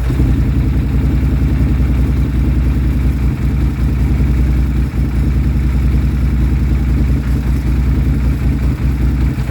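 Polaris Sportsman 850 ATV's parallel-twin engine running at idle, steady but with brief dips now and then. It has a rough idle and no power, the fault being a failing Bosch fuel pump.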